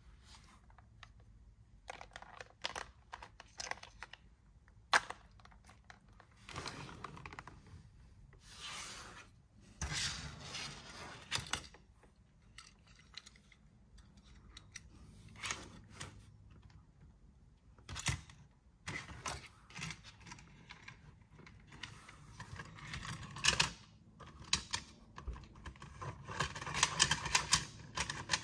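Hands handling a plastic toy car wash playset and a small toy car: irregular clicks, taps and light rattles of hard plastic, with a burst of quick clatter near the end.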